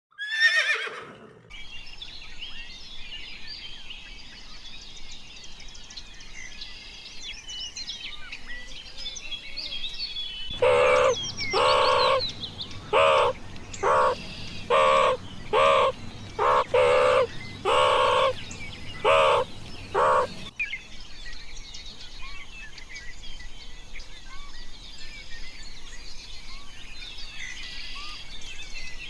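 Small birds chirping and singing throughout. In the middle comes a run of about a dozen loud, short calls with a clear pitch, roughly one a second, from a larger bird. A brief falling sweep sounds at the very start.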